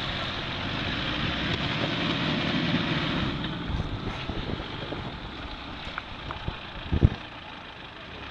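Mitsubishi Pajero SUV's engine pulling under load as it reverses through deep mud, louder for the first three seconds or so and then easing off. Wind rumbles on the microphone, with a sharp thump about seven seconds in.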